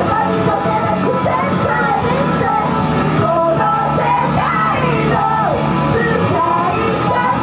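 Live idol pop-rock performance: female vocals singing and shouting into microphones over loud rock music.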